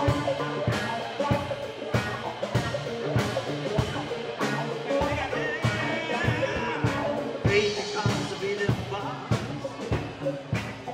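Live band playing with electric guitars, bass guitar and a drum kit keeping a steady beat, and a man's voice singing into the microphone over it around the middle.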